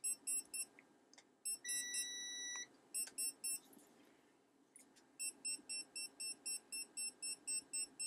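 Non-contact voltage detector beeping as it senses live voltage. Short, high beeps come in scattered pairs, then one held tone about a second and a half in, then a steady run of about three to four beeps a second from about five seconds in.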